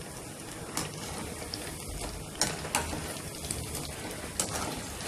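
Pakoras deep-frying in hot oil with a steady sizzle. A metal wire skimmer clicks against the pan several times as the fritters are turned.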